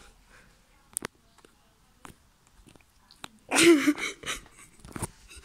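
Scattered light clicks and taps, then a short, loud, breathy burst of a child's voice a little past halfway, with a wavering pitch and no clear words, followed by a few more taps.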